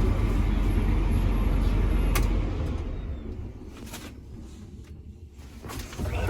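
Engine of the farm machine moving a new sprayer under cover, running with a steady low rumble, then shut off about two and a half seconds in. After a quieter stretch comes a door or latch sound near the end.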